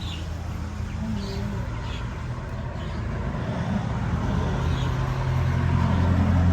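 A motor vehicle engine running with a steady low hum that grows louder toward the end, with a few faint high squeaks over it.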